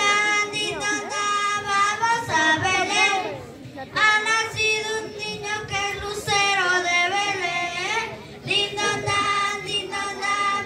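Children singing a villancico, a Spanish Christmas carol, in long held melodic phrases, with brief pauses about four and eight seconds in.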